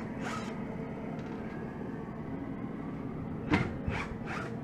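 Steady hum of woodshop machinery, with three or four sharp knocks about three and a half seconds in.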